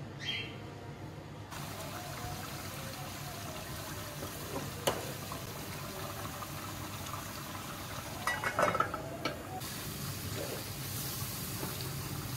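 Chicken karahi gravy simmering in a steel karahi over a gas flame, with a steady sizzling, bubbling hiss. A metal ladle stirs and scrapes in the pan, with a few clinks, most of them about eight to nine seconds in.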